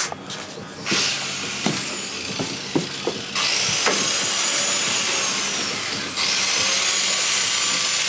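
A power tool running in two long bursts, a high whine riding over a harsh hiss, its pitch sagging as the first burst ends about six seconds in; before it, a few scattered knocks and a quieter run of the tool.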